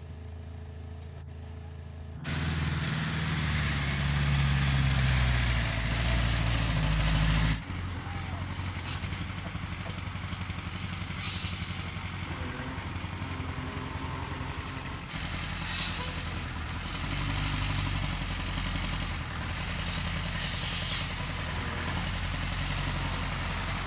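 Heavy diesel engines of construction vehicles running, louder for a few seconds after about two seconds in. Several short hisses come over the engine sound later on.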